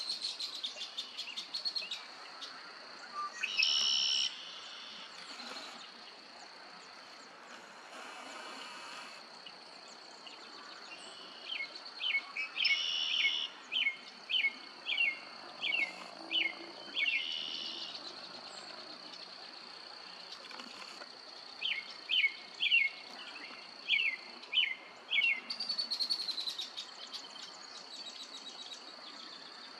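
Birds calling: two runs of short, downslurred chirps at about two a second, with quick trills near the start and again near the end, over a steady high-pitched drone.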